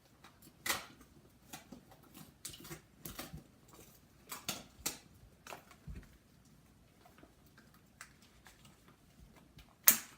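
Plastic toy capsules from a YULU PopPops Pets pack being handled: scattered light rustles and small clicks, then one sharp, loud snap near the end.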